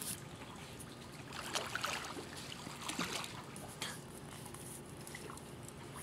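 Pool water lapping and splashing lightly as a child swims, with a few small splashes.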